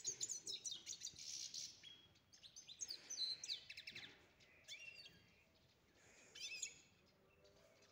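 Caged goldfinch singing: rapid twittering phrases of chirps and trills, busiest over the first four seconds, with a short burst again about six and a half seconds in.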